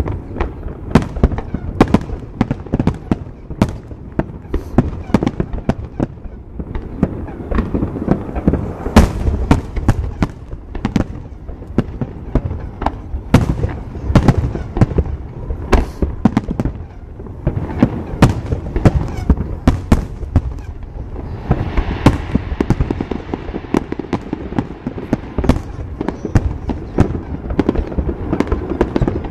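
Aerial firework shells bursting in a rapid, unbroken series of booms and sharp bangs, several to a second.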